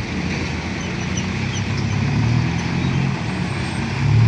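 A large vehicle's engine running with a low drone over traffic noise, growing louder near the end.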